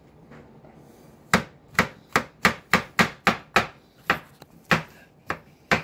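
Chef's knife slicing button mushrooms on a plastic cutting board: a quick run of about a dozen sharp knocks of the blade on the board, roughly three a second, starting a little over a second in.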